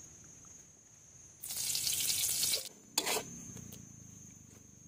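Food frying in a hot wok and stirred with a metal spatula: a loud burst of sizzling for about a second, a sharp scrape of the spatula about three seconds in, then quieter sizzling.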